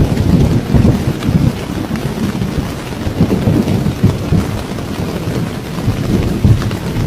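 Rain and thunder: loud, uneven low rumbling over a steady hiss of rain.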